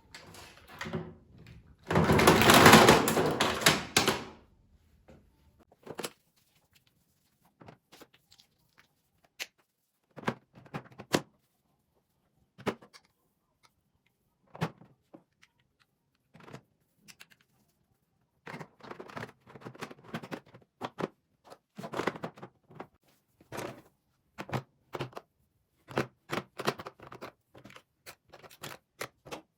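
Small household items being handled and set down, making scattered light clicks and knocks. A louder noise about two seconds long comes about two seconds in.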